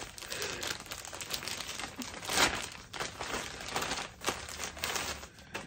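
Clear plastic poly bag crinkling and rustling in the hands as it is worked open to get at a folded t-shirt. There are many quick crackles, and the loudest burst comes about two and a half seconds in.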